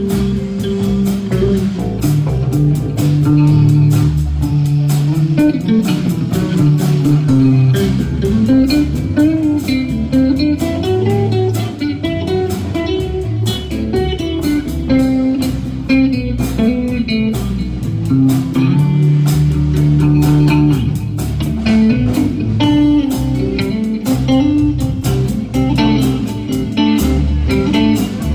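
Live band playing an instrumental passage of a blues-rock song: electric bass guitar, acoustic and electric guitars and drums, without singing.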